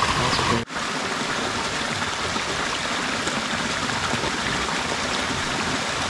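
Small cascade of water spilling over an earth bank into a river pool: a steady splashing, flowing sound, broken once by a short dropout just under a second in.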